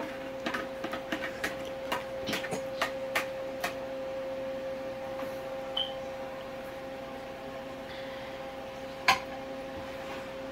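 Plastic colander tapped against a ceramic baking dish to knock out drained rice: a quick run of light taps over the first few seconds, then one sharp knock near the end, over a steady kitchen hum.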